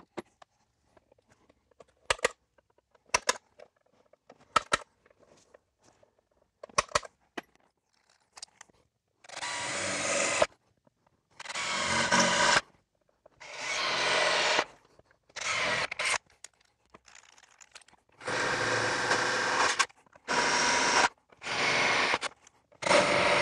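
Center punch striking the sheet-metal shelf with about five sharp clicks, then a cordless drill boring holes through the sheet metal in repeated bursts of one to two seconds each.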